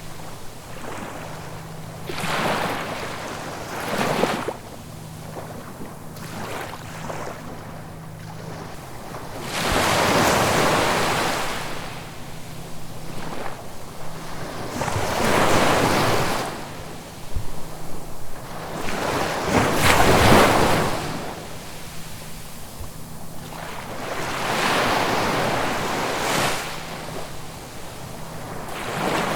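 Sea waves breaking and washing in, each surge swelling and fading every few seconds, the loudest about twenty seconds in.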